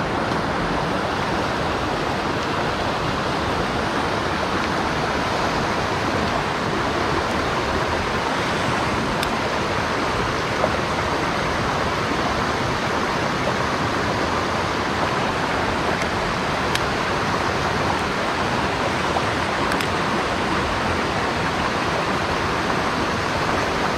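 Steady rush of a fast-flowing mountain stream, unbroken throughout, with a few faint clicks.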